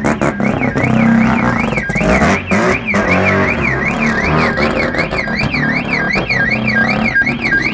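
A car alarm warbling, its siren tone sweeping up and down about two to three times a second, over the running note of a Mazda RX-7's turbocharged 13B twin-rotor rotary engine as the car drives off.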